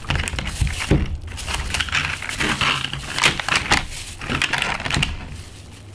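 Product packaging being handled and unwrapped: irregular crinkling and rustling with small sharp clicks.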